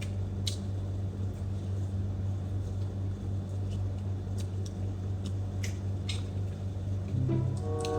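Close-up eating sounds: grilled chicken being chewed and pulled apart, with scattered small clicks and smacks over a steady low hum. A few notes of music come in near the end.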